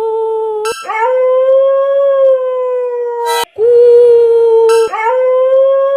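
A dog howling in long, drawn-out, steady notes, three or four in a row, each broken off by a brief pause.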